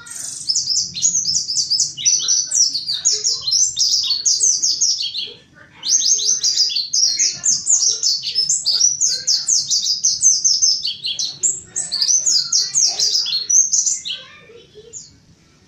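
Mountain white-eye singing a fast, high, twittering song of rapid chirps, with a short break about five and a half seconds in; the song stops about fourteen seconds in.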